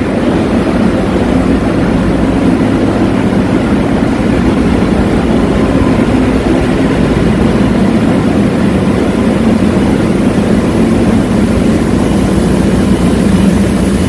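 Ship's engine-room machinery running: a loud, steady drone with a low hum.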